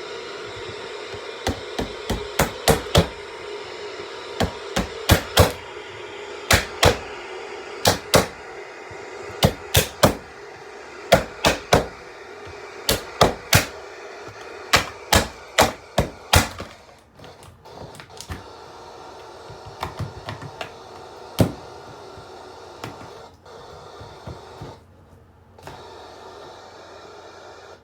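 Electric alarm clock's alarm going off in quick groups of three or four sharp beeps, a group about every second and a half, stopping about sixteen seconds in, with a few single clicks after. A steady hum runs underneath.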